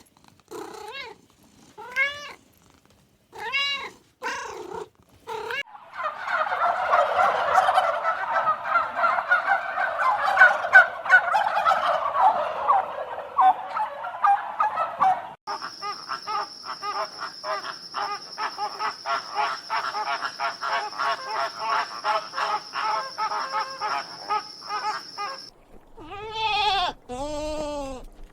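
A run of different animals' calls, one after another. It opens with a cat meowing repeatedly. A dense stretch of chattering calls follows, then a fast train of clicking calls over a steady high tone. Near the end come the first bleats of a goat.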